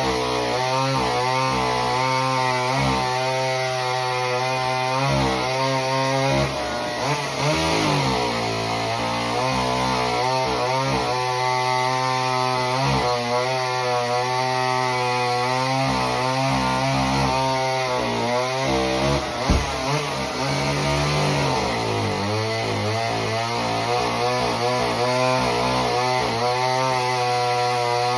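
Homelite Super Mini two-stroke chainsaw running at high revs while cutting a log. The engine note sags and recovers as the chain loads up, and there is one sharp knock about two-thirds of the way through. The saw is running well on its freshly rebuilt carburettor.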